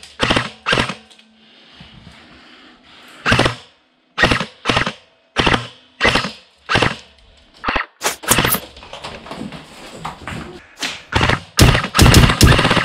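Airsoft rifle firing single shots, spaced about half a second to a second apart, then quicker strings of shots about 8 seconds in and near the end.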